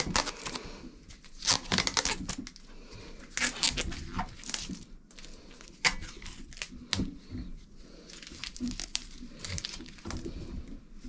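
Handlebar bar tape being peeled and unwound off drop bars, a tearing, crinkling sound in uneven spurts.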